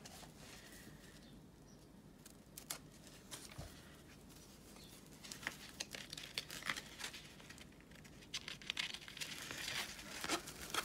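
Tightly rolled diamond painting canvas with its clear plastic cover being unrolled and handled: faint crinkling and crackling, busier in the second half.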